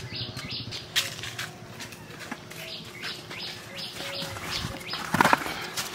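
Footsteps of several people walking on a dirt path, sandals slapping about two to three times a second, with birds calling in the background and a louder knock about five seconds in.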